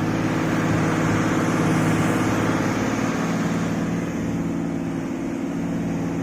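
Diesel engine of an IVECO 420 tractor unit running steadily as the truck labours over soft sand, with a constant engine drone and a hiss of wind and road noise.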